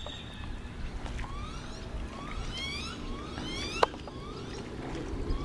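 A bird calling with a series of short rising whistles, several in quick runs, over low water and paddle noise; a single sharp knock sounds about four seconds in.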